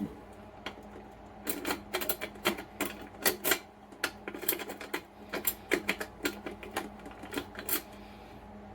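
Metal lock picks clicking and scraping against the pins inside the small lock of a book safe, in quick irregular clusters, over a faint steady hum.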